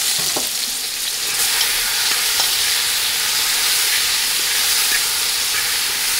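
Wet, freshly washed baby portobello mushrooms sizzling in hot salted olive oil in a pot as they are dropped in by hand. The hiss grows a little stronger about a second in, with a few light knocks.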